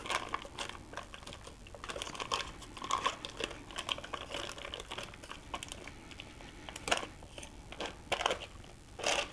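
Foil wrapper of a block of cream cheese crinkling while a knife scrapes the soft cheese off it into a mixing bowl: a run of light, irregular scrapes and crinkles, with a few sharper clicks near the end.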